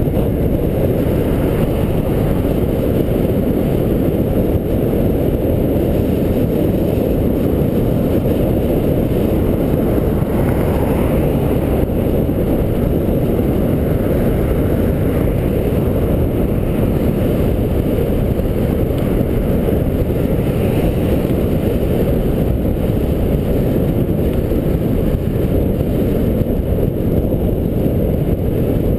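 Steady wind noise buffeting the microphone of a camera mounted on a moving bicycle: a loud, even, low rumble.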